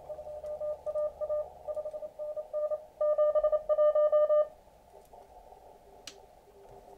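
Morse code (CW) contest signals received on an Elecraft KX2 transceiver: a keyed tone sending quick dits and dahs at a steady pitch, stronger for its last second and a half, stopping about four and a half seconds in. After that only a fainter, lower-pitched station keys on.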